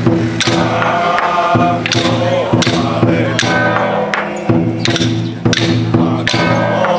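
Chinese temple ritual music: a held low drone with higher melodic lines over it, punctuated by percussion strikes about twice a second.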